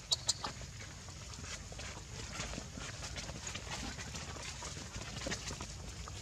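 Outdoor ambience beside a troop of macaques: a couple of sharp clicks just after the start, then scattered faint ticks and rustles over a steady low rumble.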